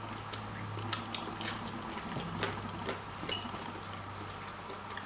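Eating at a table: forks and knives making light clicks and scrapes on plates, with chewing, over a steady low hum.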